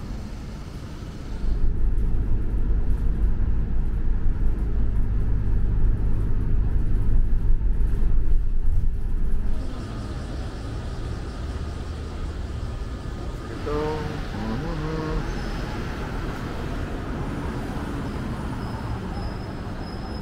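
Outdoor city street ambience. A heavy low rumble fills roughly the first half, then drops away to a steadier traffic hum, with a few people's voices briefly about two-thirds of the way through.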